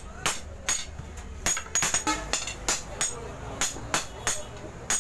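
A sledgehammer and a hand hammer striking a red-hot steel spear blank on an anvil in hand forging, alternating sharp ringing blows at about three a second in a steady rhythm.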